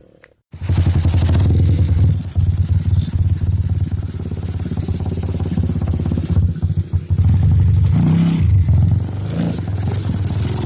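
Honda Tiger single-cylinder engine in a CB-style motorcycle running loud, starting abruptly about half a second in, with the throttle blipped and let fall a few times.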